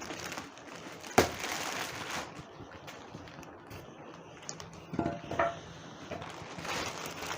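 Packaging being cut open with scissors and handled: a sharp snip or click about a second in, then rustling, and another short rustle near the five-second mark.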